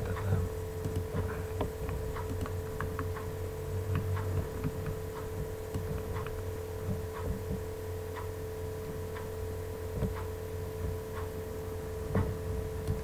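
Computer mouse clicking at irregular intervals, roughly once a second, over a steady electrical hum.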